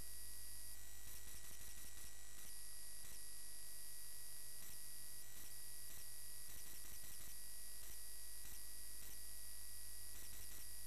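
Steady electrical hum and hiss with a thin high whine, broken several times by short runs of faint clicks.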